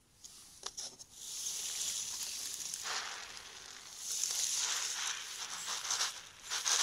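Hundreds of small round firework stars rolling around a cardboard tray as it is swirled by hand, a steady rushing rattle that comes in two swells, with a few clicks just before it starts.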